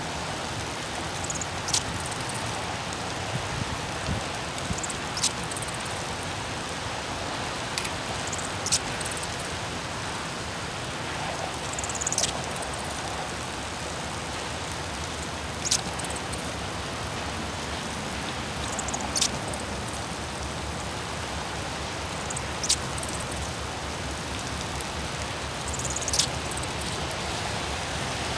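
Steady hiss of rain falling on wet pavement. A short, sharp tick cuts through it at an even pace, about once every three and a half seconds.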